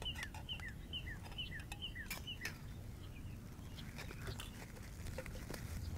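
A bird calling over and over, short falling chirps about twice a second, stopping about two and a half seconds in. Light clicks and taps of bowls and food being handled are scattered throughout.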